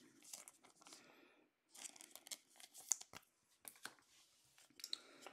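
Trading cards being handled and shuffled by hand: faint scattered rustles, slides and light ticks.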